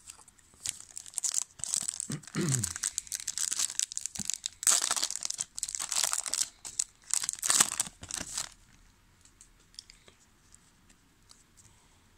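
Foil wrapper of a 2000 Topps Season Opener football card pack being torn open and crinkled by hand, a crackling in uneven bursts that stops after about eight and a half seconds.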